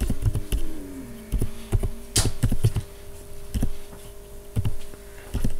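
Computer keyboard keys being typed one at a time at an unhurried, uneven pace, with a steady hum underneath.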